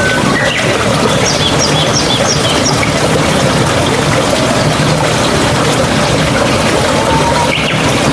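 Babbling water running steadily, with birds calling over it: a quick run of about five high chirps between one and three seconds in, and a short whistle near the end.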